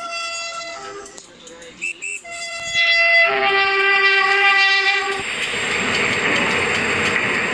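Diesel train's horn sounding several blasts, the last and loudest held about two seconds, followed by the steady rushing noise of the train running past.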